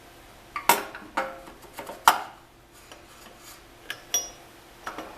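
Metal parts of a Rockwell drill press clinking and knocking together as the spindle shaft is worked up into the head during reassembly: several irregular sharp clanks, the loudest about a second in and about two seconds in, one ringing briefly near the end.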